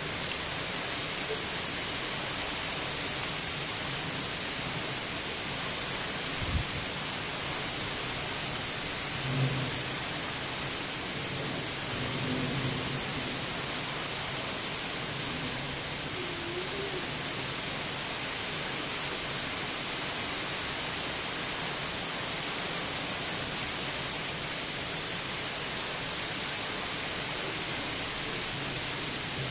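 Heavy rain pouring steadily, a constant even hiss of downpour on wet paving and trees. A brief knock comes about six seconds in, and a short low thump near ten seconds.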